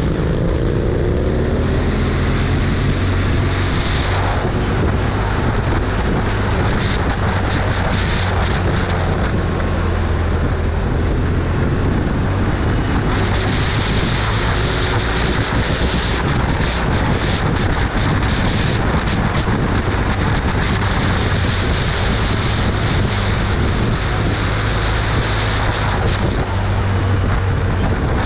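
Vehicle engine running at speed, a steady low drone under heavy wind noise on the microphone; the engine note falls in the first second.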